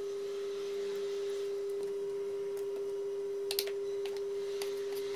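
A steady electronic sine tone, one unchanging pitch held throughout, with a few faint clicks over it, about three and a half seconds in and near the end.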